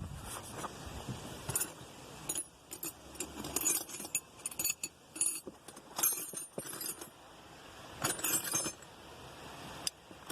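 Metal sockets clinking and jangling against each other in irregular bursts as they are picked through and tried for the right size.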